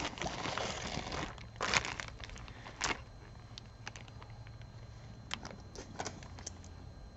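Crinkling and rustling for about the first second and a half, with a couple of louder rustles. Then scattered light clicks and taps as pieces of costume jewelry are handled and set down.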